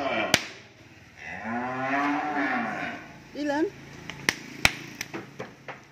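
Cattle mooing: a call fades out just after the start, then a long moo from about a second and a half in to three seconds, and a short wavering call just after. Sharp knocks come near the start and several times in the second half.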